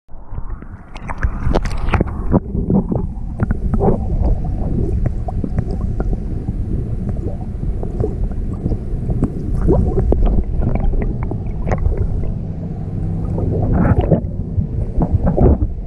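Muffled water sloshing and gurgling picked up by a camera held underwater, with scattered knocks and clicks as a hand moves in the water. There are louder bursts about two seconds in and again near the end.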